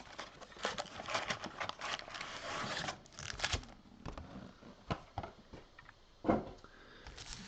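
Cardboard trading-card box and foil-wrapped packs being handled: rustling, crinkling and scraping with light taps and clicks, busiest in the first few seconds, and a louder knock about six seconds in.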